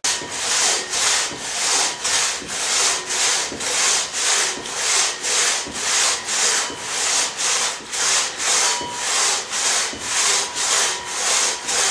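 Two-person crosscut saw cutting through a log, drawn back and forth in a steady, fast rhythm of about two strokes a second.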